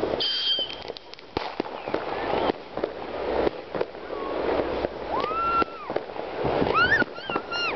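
Fireworks going off in the distance: repeated bangs and crackling, with a short high whistle just after the start and a few short rising-and-falling tones in the second half.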